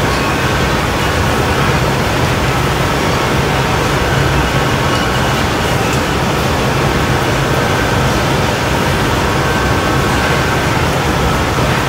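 Steady running noise of a glassblowing studio's gas burners and ventilation fans: an even rushing sound with a constant low hum beneath it, unchanging throughout.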